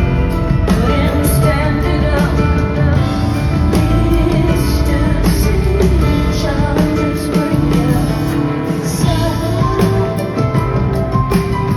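Live rock song with a woman singing over the band.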